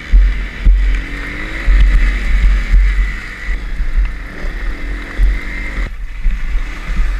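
Enduro motorcycle engine revving up and down, heard from a camera mounted on the bike, with heavy wind and bump rumble on the microphone.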